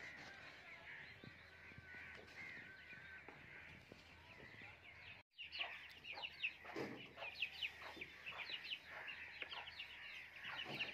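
Chickens clucking and chirping throughout. In the second half, the dull knocks and scrapes of a hoe striking and dragging loose dirt mix in with the calls.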